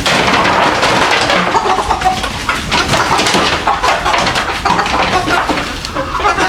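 A flock of chickens clucking and chirping, many calls overlapping without a break.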